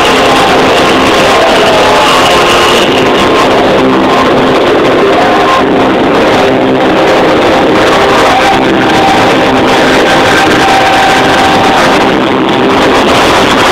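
Loud trance music at a club event, with long held synth notes that change pitch every second or two.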